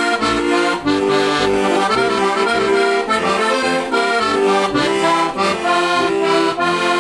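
Heligonka, a Slovak diatonic button accordion made by Juraj Krahulec, a four-voice instrument in C/F with a low octave reed, playing a folk tune without singing: a melody on the treble buttons over pulsing bass and chord notes.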